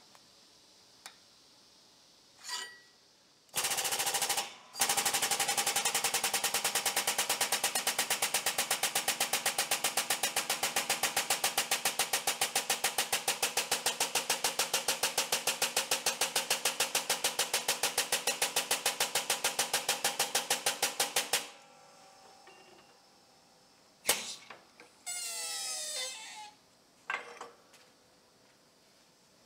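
Air-over-hydraulic 20-ton jack pumping, a loud, fast, even chatter of pulses, driving a finger brake press to bend steel plate. It starts with a short burst, runs steadily for about seventeen seconds and cuts off suddenly, followed by a sharp click and a brief hiss with sliding tones.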